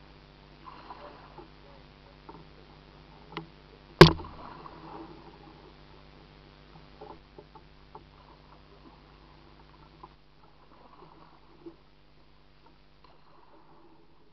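Kayak paddling on a creek: faint paddle and water sounds along the hull, with a few light knocks and one sharp, loud knock on the kayak about four seconds in.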